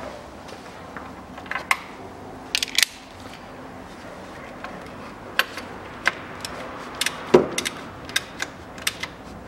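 Irregular metallic clicks and taps of a hand tool working a fitting on a car's automatic transmission as it is screwed down and tightened, with one louder knock about seven seconds in.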